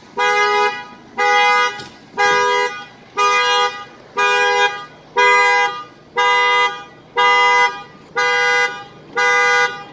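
2017 Infiniti Q50's horn honking over and over as its factory anti-theft alarm, about once a second. The alarm was triggered by the door being opened without the key after a lockout.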